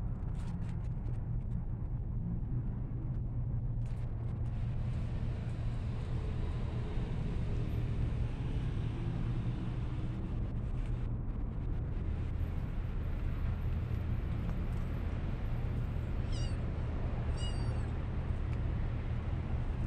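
Two brief high-pitched cat mews about a second apart near the end, over a steady low rumble.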